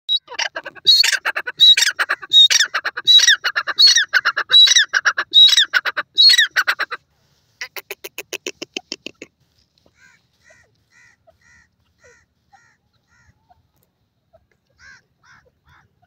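Grey francolin (teetar) calling: a loud call phrase repeated about every three-quarters of a second, then a quick run of short notes, then only faint short notes.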